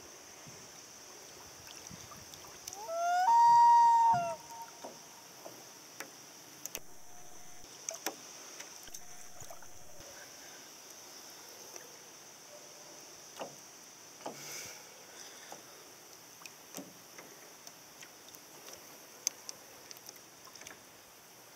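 Common loon giving a single wailing call about a second and a half long, about three seconds in; it rises at the start and then holds one note. A steady high insect buzz and small laps and ticks of water against the boat run underneath.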